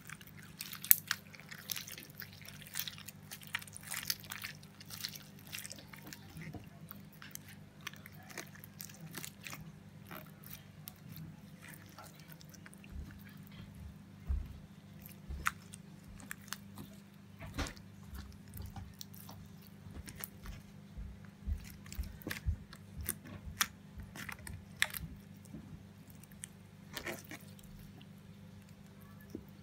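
Clear slime being squeezed and stretched by hand, giving off rapid clicking and popping crackles, dense at first and sparser later. A few soft low thumps are mixed in midway.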